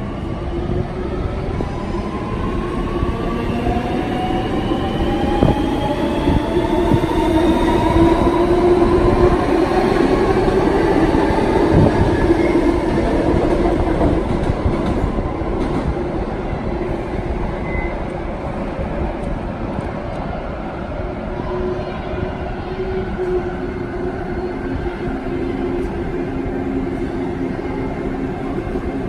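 A Sydney Metro electric train passing, its traction motors whining and rising in pitch as it gathers speed over the rumble of wheels on rail; the sound is loudest around the middle. Near the end a Sydney Trains double-deck electric train approaches with a steadier motor hum.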